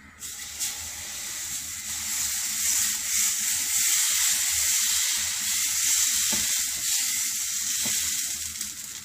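Dosa batter sizzling on a hot dosa tawa as it is poured and spread in circles with a ladle. The steady hiss builds over the first couple of seconds, holds, and eases off near the end.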